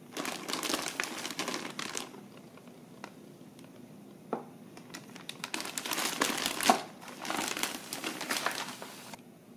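Thin plastic shopping bag crinkling as it is handled and opened: a short spell at the start, then a longer one from about five seconds in that stops suddenly near the end.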